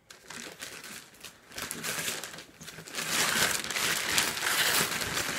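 Paper and packaging crinkling and rustling as a box of presents is opened, growing louder about three seconds in.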